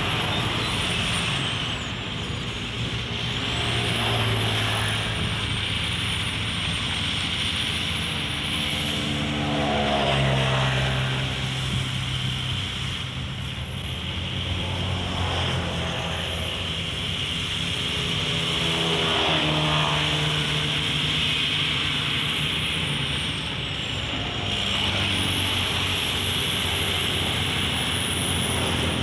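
Bulldozer's diesel engine working under load, its pitch rising and falling several times as it pushes earth, with a thin high whine that wanders up and down over it.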